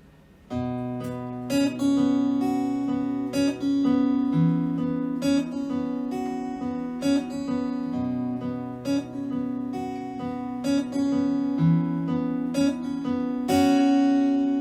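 Acoustic guitar strumming chords as a song's instrumental intro, starting about half a second in, with steady strokes about once a second and the chord changing every few seconds.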